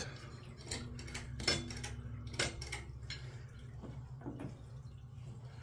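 A few light clicks and taps of a cardboard toy box with a clear plastic window being handled, spread out over several seconds above a faint steady hum.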